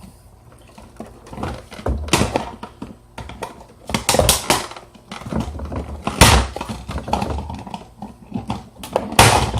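Plastic clattering and rustling as a toy dart blaster's magazine is got out and handled, a scatter of knocks with a loud one about six seconds in and another near the end.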